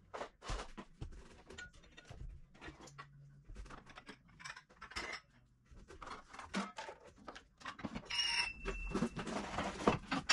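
Scattered light knocks and clicks of things being moved about inside wooden kitchen cabinets, with a brief ringing clink of glass about eight seconds in as drinking glasses are set on a shelf.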